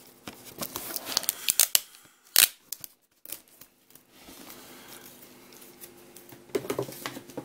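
Plastic shrink-wrap film on a DVD box being picked at and torn, a run of sharp crackles and snaps in the first two and a half seconds, the loudest about two and a half seconds in.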